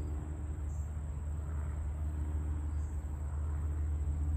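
Distant Cessna 182P Skylane's six-cylinder piston engine and propeller at takeoff power, a steady low drone as the plane departs.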